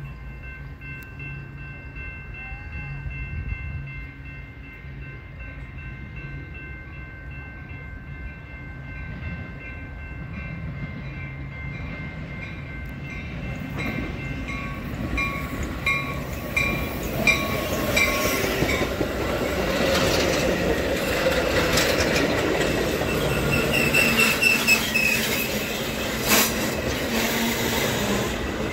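Metra bilevel commuter train approaching and rolling along the platform as it pulls into the station, cab car leading and an F40PH-3 diesel locomotive pushing at the rear. Its rumble and wheel noise grow steadily louder through the second half. Steady ringing tones, typical of grade-crossing warning bells, sound through the first half.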